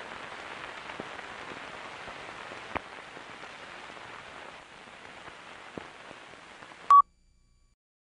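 Surface hiss and crackle of an old film soundtrack: a steady noise with a few scattered pops, slowly fading. About seven seconds in a short, loud beep sounds and the sound then cuts off to silence.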